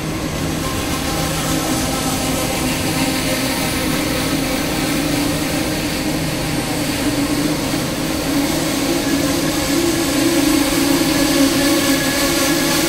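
Passenger train hauled by an HXD3D electric locomotive running into a station: a steady rumble with a hum of several steady tones, growing louder toward the end.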